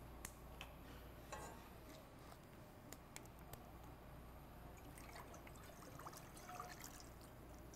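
Water faintly poured from a plastic bottle into a cooking pot, with a few light clicks of handling.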